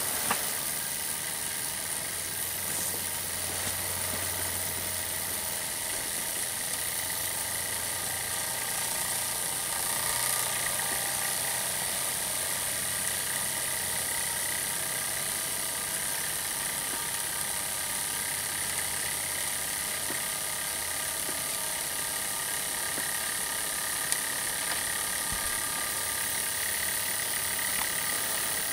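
Brass Hero's engine (aeolipile) spinning fast under steam, its jets hissing steadily with a continuous whirring rattle from the rotor on its pivot, heated by a methylated-spirit burner.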